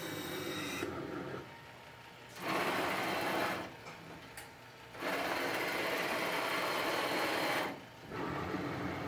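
Servo motors of a wafer coater/washer's transport moving a wafer through the machine. They run in two louder bursts, one about a second long and a longer one of about two and a half seconds, with a quieter running sound at the start and near the end.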